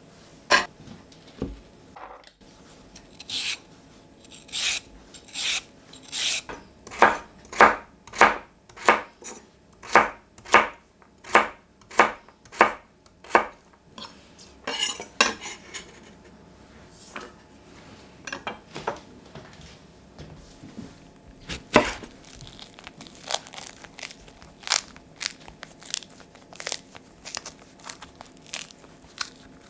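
Kitchen knife chopping vegetables on a wooden cutting board. The strokes come in an even run of about one and a half a second, then slower and less regular cuts in the second half.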